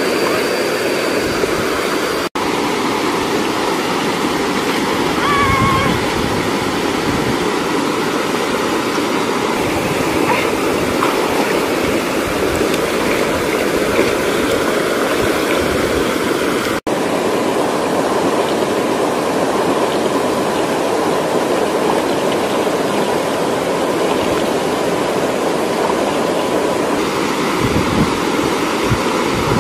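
Steady rushing of a small waterfall and stream water, with splashing now and then. The sound drops out for an instant twice.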